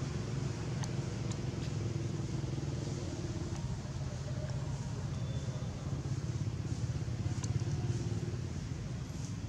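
Steady low rumble of motor-vehicle traffic, with a faint engine hum that fades in and out and a few faint clicks.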